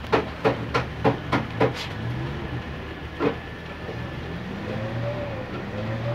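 Petrol glugging out of a plastic jug into an emptied steel fuel tank through the pump opening: a quick run of about six glugs in the first two seconds and one more about three seconds in, then a steadier pour.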